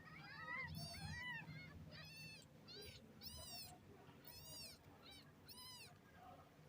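Cat meowing repeatedly: about seven short, high-pitched meows, each rising and then falling in pitch.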